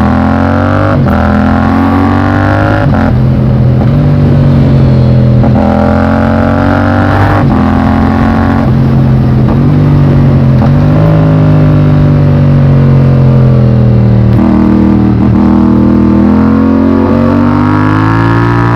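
Yamaha MT-07's parallel-twin engine under way, heard from on the bike: it revs up and drops sharply in pitch at each of several upshifts in the first half, falls off slowly while easing off in the middle, then climbs again near the end.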